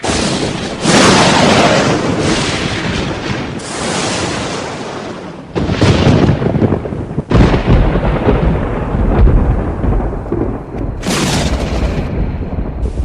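Sci-fi thunder and lightning sound effect: about four sudden cracks, each trailing off into long rumbling thunder, with the heaviest deep rumble in the second half.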